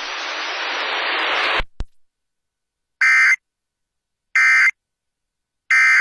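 Steady hiss for about a second and a half, cut off with a click, then three short identical bursts of Emergency Alert System end-of-message data tones, the digital code that closes the alert, about a second and a half apart.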